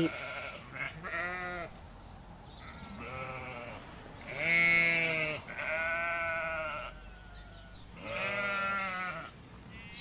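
Sheep bleating, a string of about six drawn-out 'baa' calls a second or two apart, varying in pitch, the loudest about halfway through.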